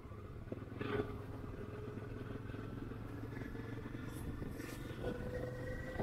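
Car driving along a road: steady engine and road rumble, with an engine tone that climbs slightly near the end.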